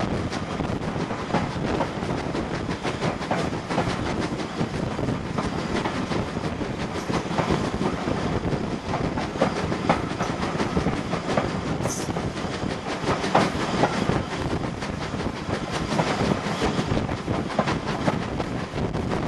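Steam-hauled train running at speed, heard from a window of the train: a steady rumble and rush of air with frequent clacks of the wheels over rail joints.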